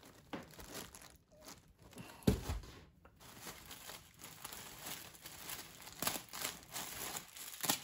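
Tissue paper rustling and crinkling in short bursts as hands handle the paper-wrapped contents of a gift box, with one soft thump about two seconds in.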